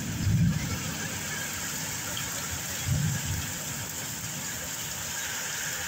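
Heavy rain falling steadily in a storm, with short low rumbles about half a second in and again around three seconds in.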